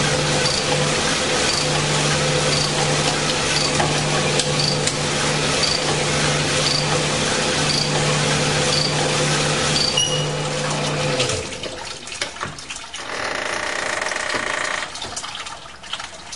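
Gardner Denver cylinder honing machine running, its roughing stones scrubbing rust out of a steam engine's cylinder bore with honing fluid flowing: a steady hum and wash of noise with a faint tick about once a second. It stops about eleven seconds in, leaving a quieter, uneven sound.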